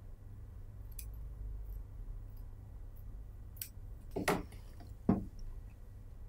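Metal tailor's shears snipping through polyester batting: faint clicks at first, then two louder snips about four and five seconds in, each sliding down in pitch as the blades close.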